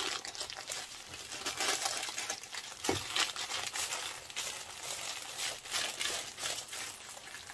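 A wrapping sheet crinkling and rustling in irregular crackles as it is handled and folded around a rolled cake, with a soft knock about three seconds in.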